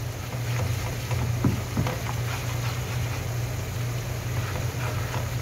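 Butter and flour sizzling in a nonstick frying pan as a slotted plastic spatula stirs and scrapes through it: a roux cooking for white sauce. A couple of knocks of the spatula on the pan come about a second and a half in, over a steady low hum.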